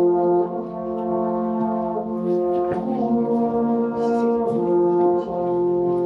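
Slow instrumental music of long held chords, the notes shifting every second or two.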